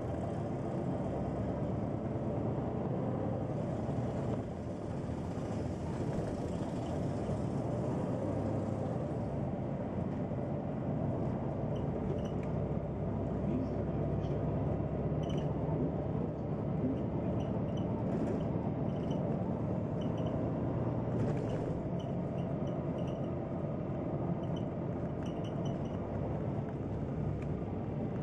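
Neoplan N 4416 city bus running at low speed, heard from inside the cabin: a steady engine and drivetrain hum with road noise. Light ticks and rattles come through from about halfway on.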